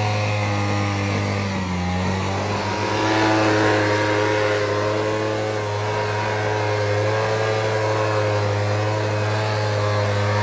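Gas leaf blower engine running steadily, its pitch dipping briefly about two seconds in, then rising and getting a little louder a second later.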